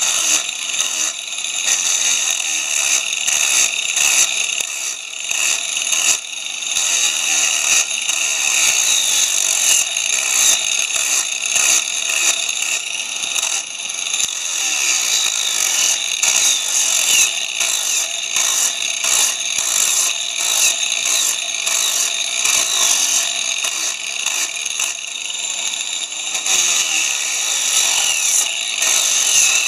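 Handheld grinder fitted with a coarse 40-grit sanding disc, run slow on a speed controller at about 40% speed, sanding down the proud part of a wooden handrail bend joint. A steady grinding, rubbing sound that swells and eases as the disc is pressed on and lifted off the wood.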